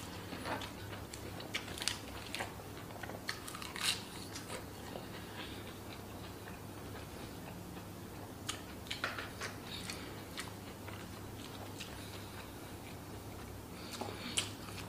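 Close-miked eating: chewing and crunching of food with sharp wet mouth clicks, coming in scattered spells. Under it runs a faint steady hum.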